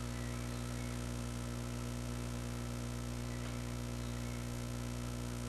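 Steady electrical mains hum with a stack of even overtones, unchanging in pitch and level.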